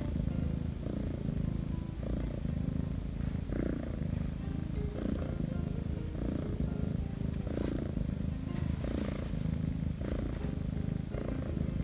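Black-and-white Korean shorthair kitten purring continuously while being petted, a low steady rumble that swells with each breath every second or so. It is the contented purr of a relaxed kitten being handled.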